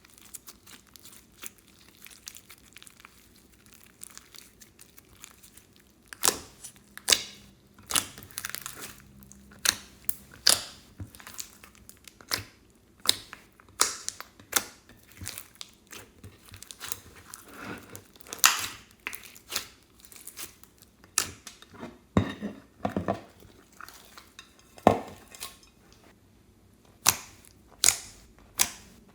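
Slime being squeezed and stretched by hand, giving irregular sharp pops and crackles of trapped air. It is soft for the first several seconds, then the pops come thick and loud.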